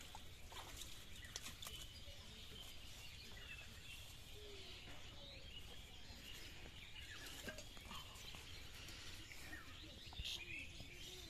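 Faint rural outdoor ambience: scattered short bird chirps over a steady hiss, with a few small clicks and rustles.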